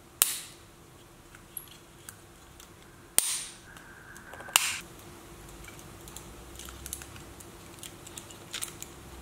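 Stiff 3D-printed PLA plastic headphone parts clicking as they are handled and pressed together: three sharp clicks, just after the start, about three seconds in and about four and a half seconds in, with lighter ticks in between.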